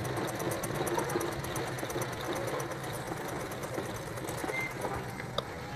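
Salika hand-turned domestic sewing machine stitching cloth, a rapid, even clatter of the needle mechanism that stops near the end.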